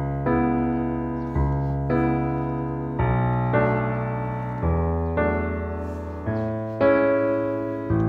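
Background piano music: slow chords, a new one struck every half second to a second and a half, each left to fade.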